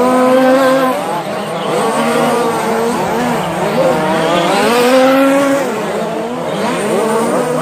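Several radio-controlled short course trucks racing, their motors overlapping and rising and falling in pitch as the drivers throttle on and off through the corners.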